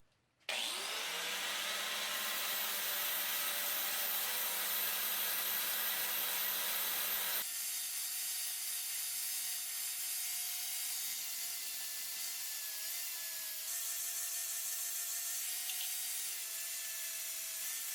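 Electric grinder spinning up about half a second in and grinding steel steadily, a motor whine under the rasp of abrasive on metal. About seven and a half seconds in the sound changes suddenly to a higher, steady whine as the grinding goes on.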